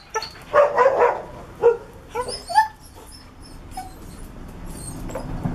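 Dogs at play giving short, excited yips and whines, several quick calls in the first three seconds and one more a little later.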